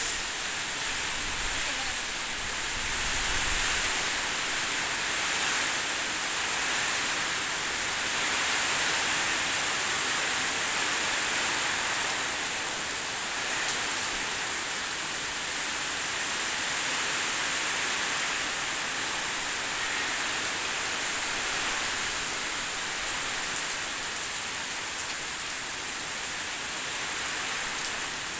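Heavy rain pouring down in a tropical windstorm: a dense, steady hiss that swells and eases slightly as the gusts come and go.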